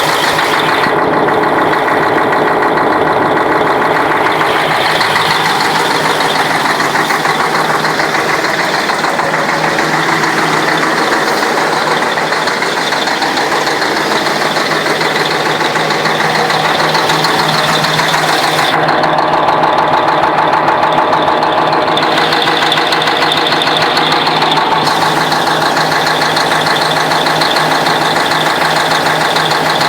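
YaMZ-6581.10 truck diesel engine idling steadily with a knock whose cause is unknown.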